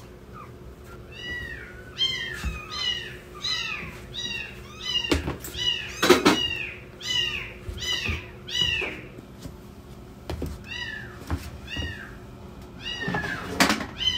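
Newborn kittens crying: a rapid series of short, high-pitched mews, each rising then falling in pitch, about two a second. The mews stop for a few seconds and start again near the end. A few soft knocks or rustles come in between, the loudest about six seconds in.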